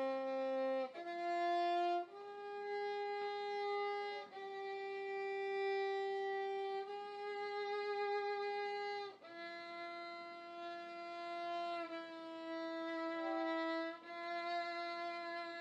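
Solo violin playing a slow, mournful melody of long held notes, one note at a time.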